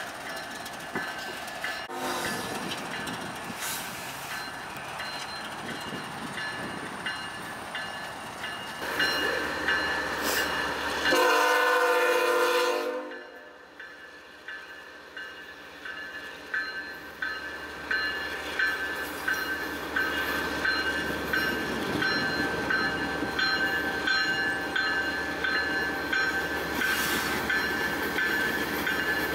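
Canadian National diesel freight locomotives approaching with the horn sounding for a grade crossing: short blasts early on, then a long, loud blast that cuts off sharply about thirteen seconds in. Engine rumble and a steadily repeating bell grow louder as the train draws near.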